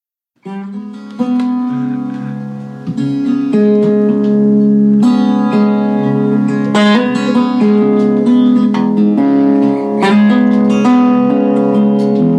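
Acoustic guitar picking a country blues intro, plucked notes ringing over sustained low bass notes, starting about half a second in.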